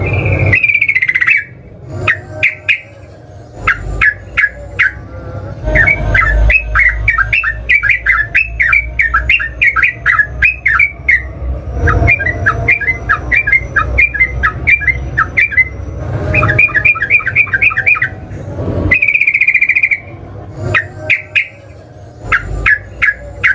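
Yellow-vented bulbul (trucukan) singing in long chattering runs of quick notes, about four a second, with a longer whistled note at the start and again near the end and sharp clipped notes in between.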